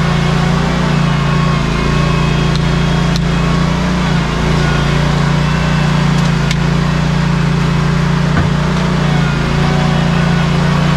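Ready-mix concrete truck's diesel engine running steadily, with a strong even hum, while the mixer drum turns to discharge concrete. Two faint sharp ticks come about three and six and a half seconds in.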